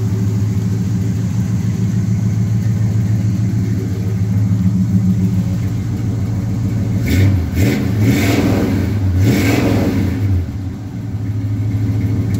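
1978 Chevy C10's 350 small-block V8 with dual exhaust running at idle, with a few brief revs in the middle. It runs evenly with no odd noises.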